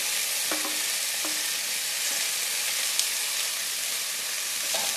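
Steamed flat beans sizzling steadily in hot oil in a non-stick kadai just after being tipped in, with a few light knocks against the pan.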